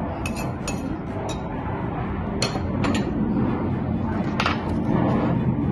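A metal spoon clinks against a ceramic mixing bowl about six times at uneven intervals, over a steady low background noise.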